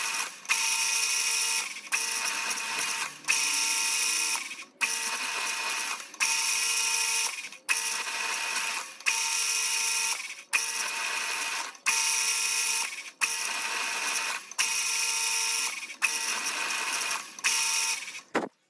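A machine running in short repeated cycles, a steady whine that starts with a click about every second and a half and stops briefly between cycles, about a dozen times; it cuts off suddenly near the end.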